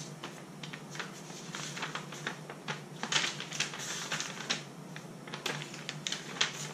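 Paper rustling and crackling as a manual booklet and loose sheets are leafed through and shuffled, in irregular short bursts, over a steady low hum.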